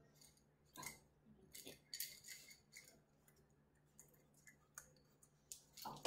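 Faint scuffling and light clicks of a young puppy moving about on a quilted whelping-box pad, with one louder scuffle near the end.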